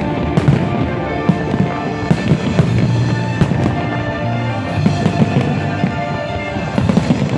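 Aerial fireworks shells bursting overhead in a run of sharp bangs at irregular intervals, sometimes several in quick succession.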